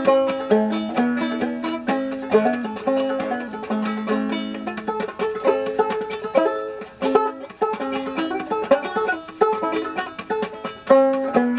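Five-string banjo played clawhammer style: a steady, quick run of plucked, ringing notes with a driving beat.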